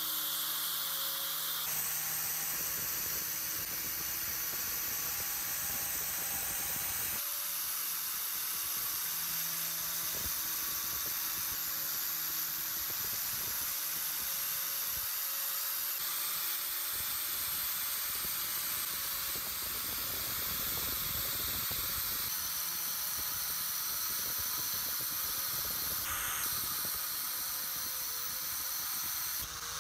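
Spinning wire cup brush scrubbing rust off the cast-iron body of an antique meat grinder: a steady scratchy hiss over a faint motor hum, changing abruptly a few times.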